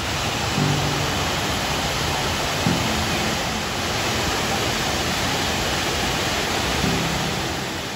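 Waterfall cascading down stepped rock ledges into a shallow pool: a steady, full rush of falling water.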